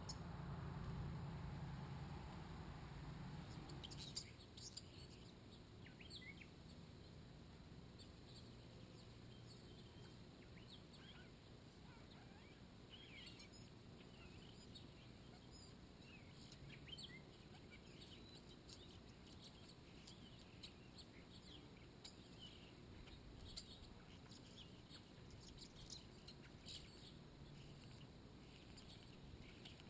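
Faint, scattered short bird chirps and tweets from about four seconds in, over quiet outdoor background noise; a low rumble fills the first few seconds.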